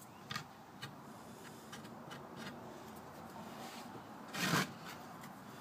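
Handling of a wooden board on a wooden workbench: a couple of light taps, faint rubbing, then a brief louder scrape about four and a half seconds in.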